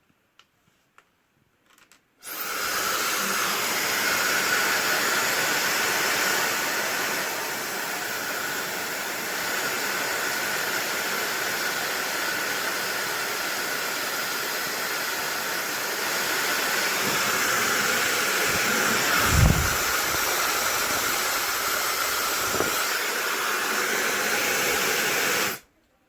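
YAPOY high-speed ionic hair dryer switched on about two seconds in, blowing steadily with a high motor whine over the rush of air, then switched off near the end. A brief low thump about two-thirds of the way through.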